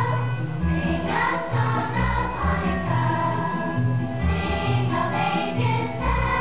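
Children's choir singing with musical accompaniment, a low bass line stepping from note to note beneath the voices.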